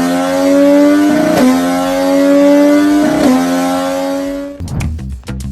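Naked sport motorcycle engine running at high revs, a loud steady note that breaks briefly about every two seconds. Near the end it gives way to a choppy, rapidly pulsing sound.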